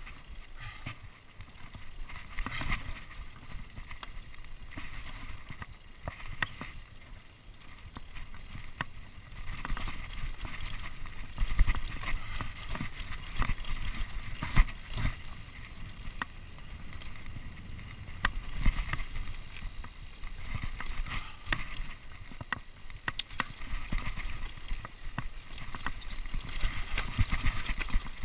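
Mountain bike descending a dirt forest trail: tyres rolling over earth and roots, with frequent sharp clicks and knocks as the bike rattles over bumps, and a few harder jolts partway through.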